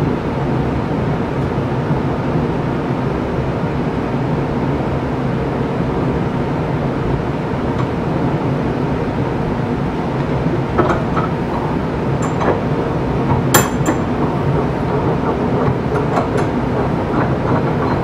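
Steady low mechanical hum and rumble of workshop machinery or a fan, with a few short metallic clicks in the second half, the sharpest about two-thirds of the way through, as small metal pen parts are worked in a bench vise.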